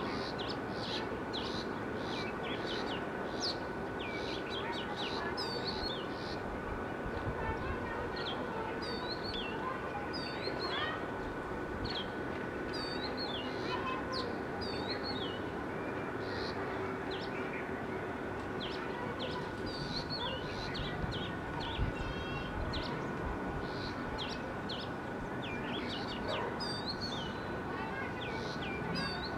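Oriental magpie-robin singing: a varied, continuous song of short clear whistled notes that slur up and down, phrase after phrase. Behind it run a steady low background rumble and a constant thin high tone.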